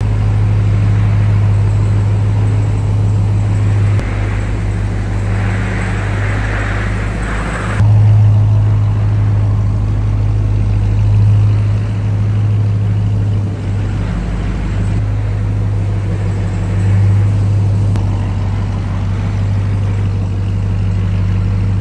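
Ram 1500 TRX pickup's supercharged 6.2-liter V8 running steadily under way, a constant low engine drone that changes abruptly about 4 and 8 seconds in.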